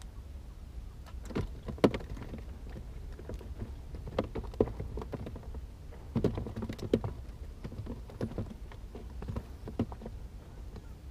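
Irregular knocks, taps and clicks of perch and tackle being handled on a boat as the fish are unhooked from a multi-hook line, coming in clusters with the sharpest knock about two seconds in, over a low steady rumble.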